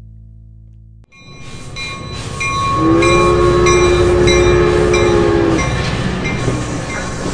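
A train rumbling and clattering along, with its horn sounding one steady chord for about two and a half seconds in the middle. Before it starts, the last fiddle note fades out.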